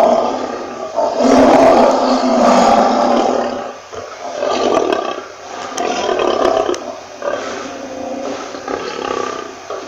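Lion roaring: one long, loud roar about a second in, followed by a run of shorter, quieter roars about once a second.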